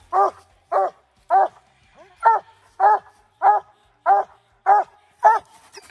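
Coonhound barking treed, nine loud, short barks evenly spaced a little under two a second, the steady tree bark of a hound that has a raccoon up the tree.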